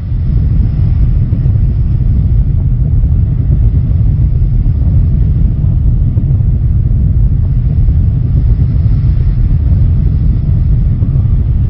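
A steady, loud low rumble with no distinct pitch, holding even throughout.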